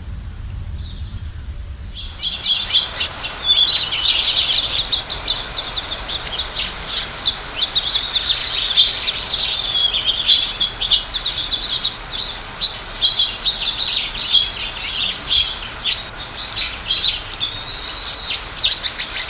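A dense chorus of many small birds chirping and tweeting, with overlapping quick high calls. It starts suddenly about two seconds in, after a quieter low rumble.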